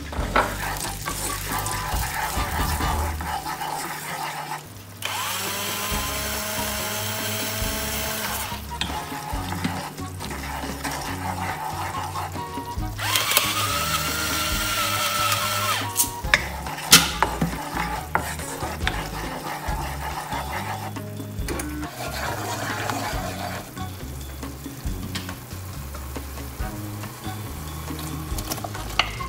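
Garlic and chili sauce sizzling in a wok, stirred with a wooden spoon, over low background music. An electric grinder whirs twice for a few seconds, about five seconds in and again about thirteen seconds in, grinding black pepper over the pan.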